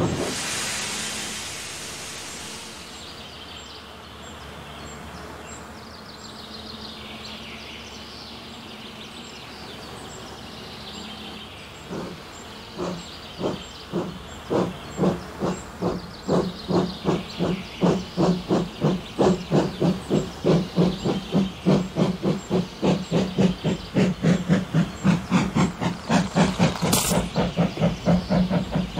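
Steam locomotive sound effect. A burst of steam hiss at the start, then from about twelve seconds in the exhaust chuffs of a locomotive pulling away, quickening from about two to about three a second over a steady low tone. A short hiss of steam comes near the end.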